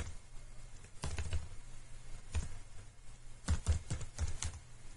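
Computer keyboard being typed on: scattered single key clicks, then a quicker run of several keystrokes near the end, with pauses between.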